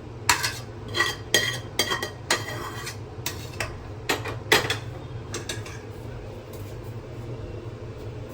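Spoon clinking and scraping against a metal pressure cooker as the cooked rice is scooped out: about ten sharp ringing clinks in the first five seconds, then softer taps. A steady low hum runs underneath.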